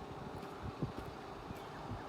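Wind buffeting the microphone as low, irregular rumbles over a faint outdoor background hiss, with a few light clicks.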